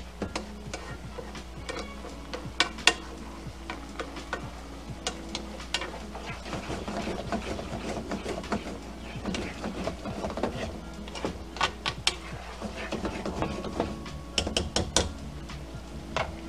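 Risotto being stirred with a spoon in a metal frying pan: irregular scrapes and clicks of the spoon against the pan through the wet, simmering rice.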